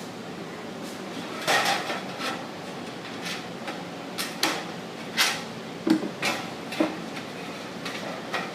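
Thin sheet-metal plaster ground being worked by hand, giving irregular light metallic clanks and rattles, with a couple of duller knocks about six and seven seconds in.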